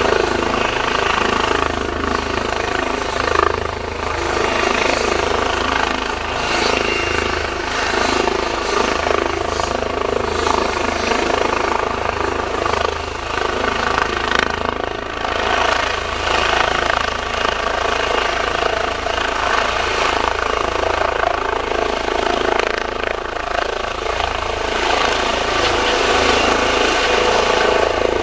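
ADAC rescue helicopter with its rotor turning at speed for take-off: a steady, loud turbine-and-rotor noise with a fast low rotor beat. A thin high whine rises slightly in pitch in the second half.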